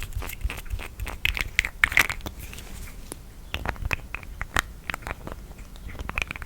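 Lids and caps being handled close to the microphone: a run of irregular sharp clicks and short scraping noises as they are worked open and shut.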